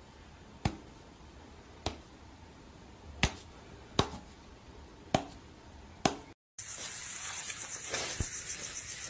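Six sharp clicks, spaced roughly a second apart, over faint room tone; about six seconds in, the sound cuts to a steady hiss.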